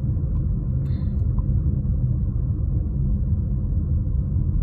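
Steady low rumble of a car driving on a paved road, heard from inside the cabin: tyre and engine noise at cruising speed.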